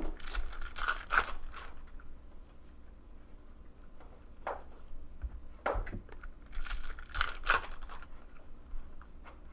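Foil wrapper of a trading-card pack being torn open and crinkled, with the cards handled. There are rustling bouts at the start and again about two-thirds of the way through, with shorter scrapes in between.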